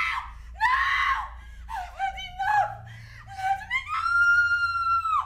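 A woman screaming: a string of short, high shrieks, then one long high scream held steady for over a second that cuts off suddenly.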